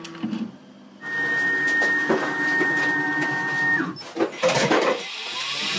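Makera Carvera Air desktop CNC mill's motors whining steadily for a couple of seconds, then stopping abruptly. Clicks and knocks follow as the dust-collector hose is fitted to the head, and near the end a rising whine as a motor spins up. The footage runs at double speed, which raises the pitch.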